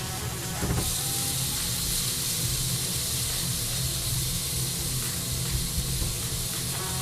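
Meat sizzling in a frying pan: a steady hiss that grows louder about a second in, over a steady low hum.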